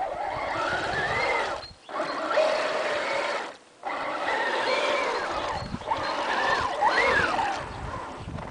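Electric motor and gearbox of a Tamiya radio-controlled Mitsubishi Pajero whining, rising and falling in pitch as the throttle is worked, cutting out twice briefly about two and four seconds in.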